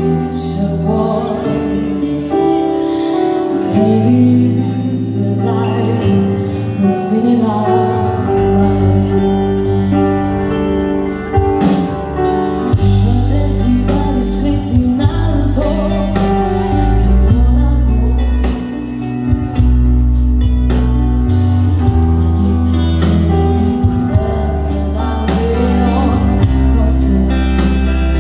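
Live band music with a woman singing over keyboard and electric guitar; the bass comes in about eight seconds in and the drums join about twelve seconds in.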